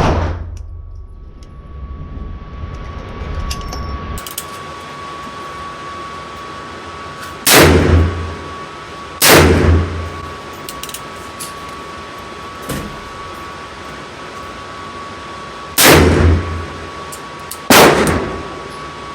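Four loud handgun shots, each ringing out after the crack, in two pairs about two seconds apart, with a much fainter shot between them. A steady high hum runs underneath.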